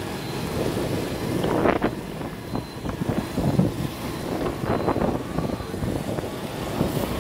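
Wind rushing over the microphone of a Honda scooter riding through traffic, with the scooter's small engine and the surrounding traffic running underneath; the wind swells louder a couple of times.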